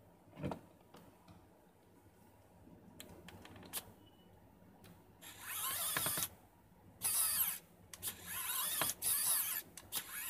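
Homemade electric screwdriver built on a small N20 3 V gear motor, whirring in several short bursts of about a second each as it turns a screw in a plastic keyboard case, starting about five seconds in. A faint thump and a few light clicks come before it.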